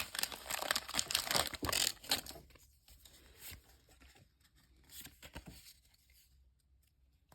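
Foil booster-pack wrapper being torn open along its long side, a dense crinkling tear for about two seconds, followed by a few faint rustles that die away.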